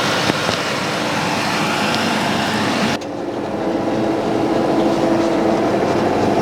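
Large diesel farm tractor engine running steadily. About three seconds in the sound changes suddenly: the hiss drops away, leaving a steadier low engine hum that grows slightly louder.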